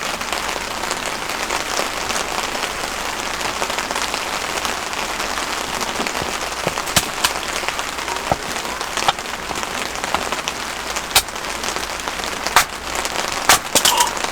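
Steady rain falling, with a handful of sharp knocks from firewood being split in the second half.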